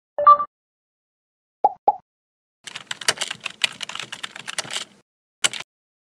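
Animation sound effects: a short two-note blip, two quick pops, then about two seconds of rapid computer-keyboard typing and a single click near the end, as of text typed into a search box and entered.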